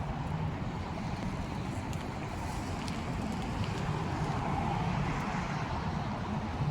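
Steady outdoor traffic rumble from road vehicles, a low continuous hum with no distinct events.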